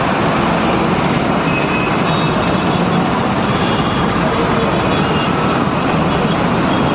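Dense road traffic: a steady, loud mix of vehicle engines and tyre noise with no single vehicle standing out.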